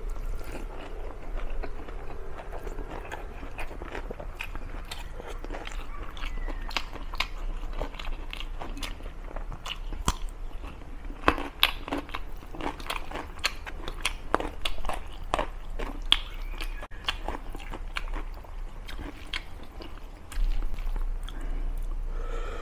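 A person chewing and biting mouthfuls of rice and leafy curry eaten by hand, picked up close by a clip-on microphone, with many small, irregular mouth clicks and smacks.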